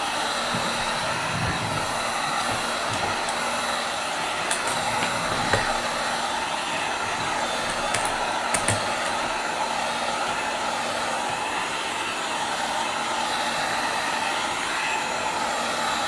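Hot-air heat gun blowing steadily, warming the edges of a newly fitted tablet touchscreen before it is clamped down, with a few faint clicks.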